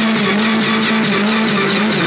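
Electronic dance music with a steady, fast beat over a held synth tone that wavers in pitch.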